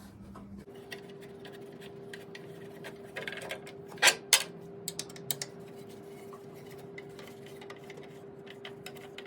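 Light metallic clicks and taps of an Allen key working the cover bolts on a Wen thickness planer, with two sharper knocks about four seconds in. A steady hum runs underneath.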